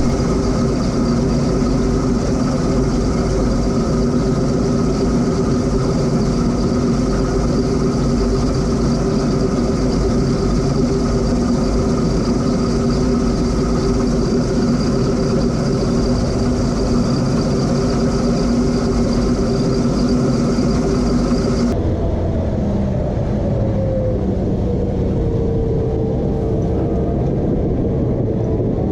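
Combine harvester running steadily at working speed, its engine, fans and threshing gear holding level hum and whine tones. About three quarters of the way through the sound changes abruptly to a duller machine run, with a tone that slides down in pitch and then levels off.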